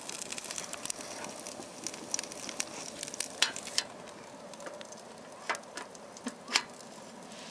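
Wood fire crackling and hissing inside a homemade ammo-can stove burning sticks, with scattered sharp pops.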